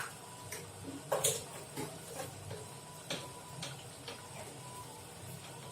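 Scattered light clicks and taps of a utensil against a cooking pot, about half a dozen, irregularly spaced, the sharpest about a second in and about three seconds in.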